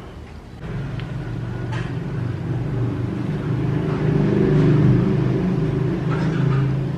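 A motor vehicle engine running close by, a low rumble that starts about half a second in, builds up over a few seconds and eases off near the end.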